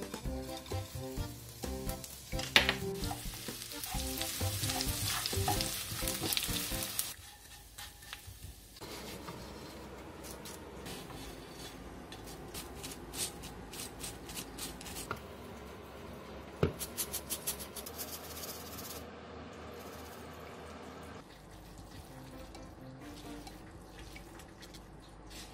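Dried anchovies sizzling in oil in a frying pan as they are poured in and stir-fried over low heat, with scattered clicks from stirring. Background music plays at the start and near the end.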